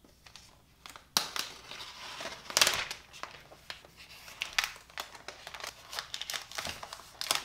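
Clear protective plastic film being peeled off the underside of a new laptop: irregular crinkling and crackling of the film, starting about a second in and loudest about two and a half seconds in.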